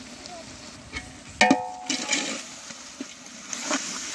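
Metal ladle striking a large metal cooking pot once, with a brief ringing, then scraping and stirring through a thick onion-tomato masala with spice powders.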